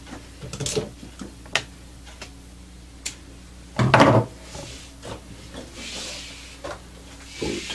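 Workbench handling sounds: scattered clicks and knocks as scissors and braided cord are picked up, and a brief louder sound about four seconds in. Later comes a soft rustling hiss of cord being drawn out through the hands.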